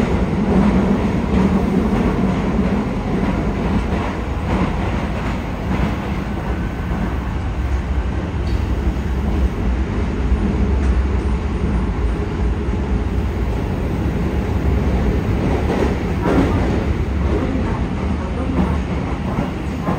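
Yokohama Municipal Subway 4000-series train running through a tunnel, heard from inside the passenger car: a steady loud rumble of wheels on rail with car-body noise.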